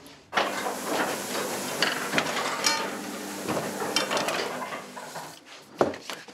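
Flatbed cylinder proof press running: the cylinder rolls across the bed with a steady mechanical rattle and many small clicks, stopping about five seconds in, then a single sharp knock.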